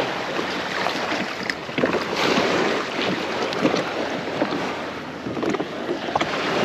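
Water lapping and splashing around a kayak on saltwater, with wind buffeting the microphone; a steady rushing noise scattered with small crackles and splashes.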